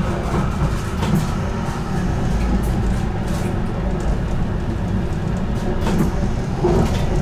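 Interior running sound of an HTM GTL8 tram moving along its tracks: a steady low rumble with short clicks now and then from the wheels and car body.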